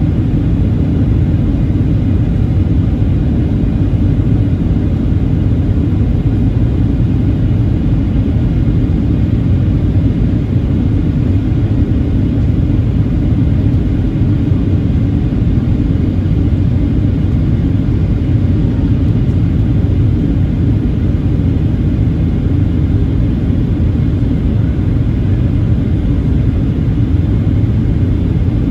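Steady low cabin rumble inside a Boeing 737-900ER in flight: its CFM56-7B turbofan engines running, along with airflow over the fuselage, heard from a window seat by the wing.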